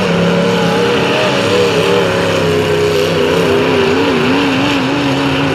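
Several demolition derby trucks' engines running and revving together, their pitches wavering up and down over a steady loud wash of noise.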